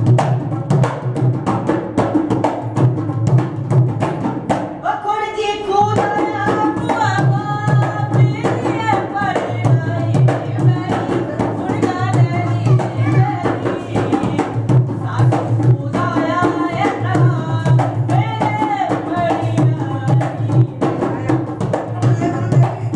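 Dholak drum playing a fast, steady folk rhythm, with a voice singing a folk melody over it from about five seconds in, pausing briefly near the middle.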